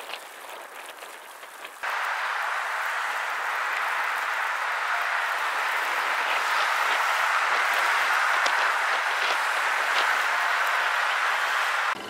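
A steady hiss of outdoor noise that starts suddenly about two seconds in and holds evenly, with little low rumble.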